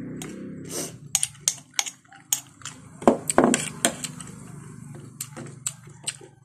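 Metal spoon and fork clinking and scraping against a glass jar and a plate while bagoong is dug out and served, a quick run of sharp clinks over a low steady hum.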